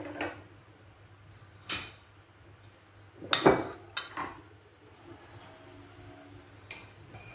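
A few scattered clinks and knocks of kitchen dishes and utensils, the loudest about halfway through.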